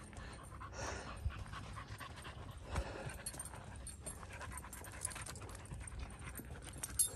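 A dog panting, with a few scattered short clicks and rustles underneath.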